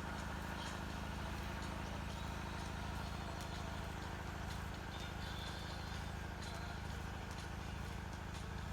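Steady low electrical hum with faint, scattered ticks.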